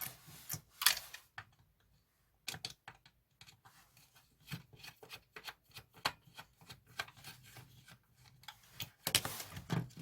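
Irregular clicks, taps and light scraping of plastic and metal parts as a disassembled cassette tape recorder's transformer and small parts are handled and pulled out, with a brief pause about a second and a half in.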